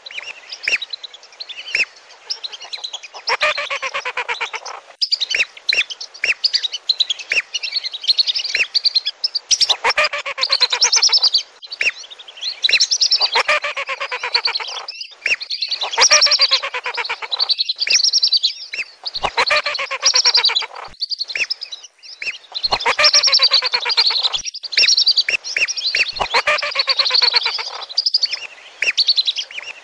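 Lesser and wandering whistling ducks calling, played as a lure call. Their shrill whistles come in dense, overlapping bouts of a second or two every few seconds, with single whistles between.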